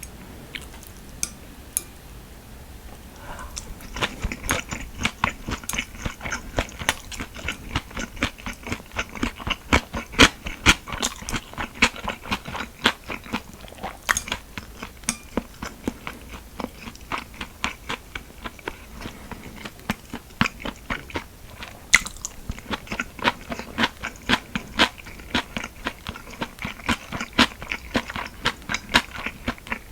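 Close-miked chewing and crunching of food by a person eating. A few faint clicks come first, then from about four seconds in there is a steady run of quick, crisp bites and chews.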